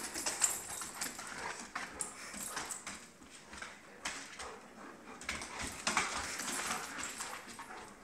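Two dogs wrestling in play on a hardwood floor, their claws clicking and scrabbling in quick, irregular taps.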